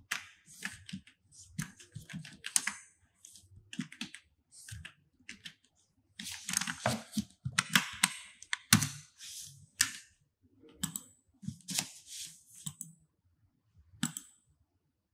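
Typing on a computer keyboard: irregular runs of short key strikes with brief pauses between them.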